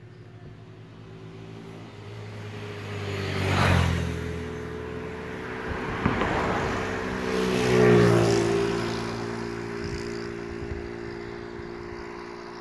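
Motor vehicles passing close by with a steady engine hum, swelling to two loud pass-bys about four and eight seconds in.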